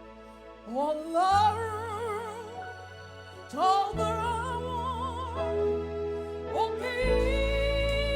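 Church praise-and-worship music: a solo voice sings three long phrases with strong vibrato, sliding up into each one, over sustained chords and a bass that change under each phrase.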